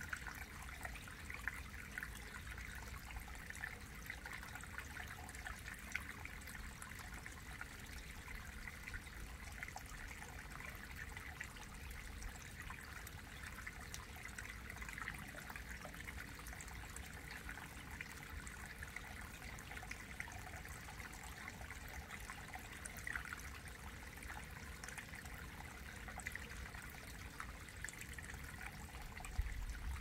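Mountain stream water trickling over granite into a shallow rock pool: a steady babble with many small splashing ticks.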